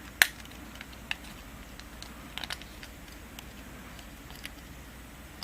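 Small sharp plastic clicks and taps of a headlight-switch part being worked off its snap tabs by hand: a few separate clicks, the loudest about a quarter of a second in, then others around one second, two and a half seconds and four and a half seconds.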